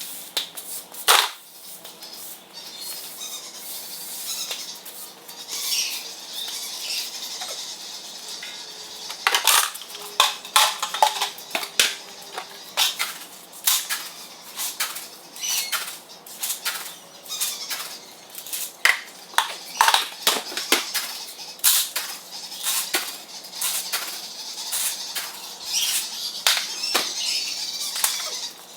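Irregular sharp clicks and clattering knocks, coming several a second at times from about ten seconds in, with faint high bird chirps behind them.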